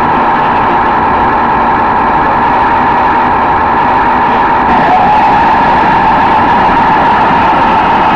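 Radio-controlled model tank running, heard loud and close from on board: a steady mechanical drone with a strong mid-pitched hum. About five seconds in it grows a little louder and brighter, with a brief rising tone, as the tank starts to turn.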